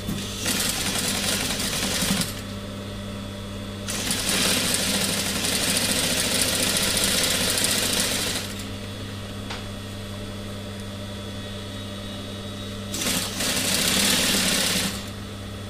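Industrial sewing machine stitching fleece in three runs: a short one of about two seconds, a longer one of about four and a half seconds, then another short one near the end. A steady low hum carries on between the runs.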